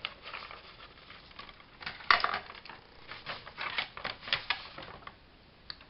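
Paper being handled and lined up on a plastic paper trimmer: a series of light clicks and taps with paper rustling, the loudest about two seconds in.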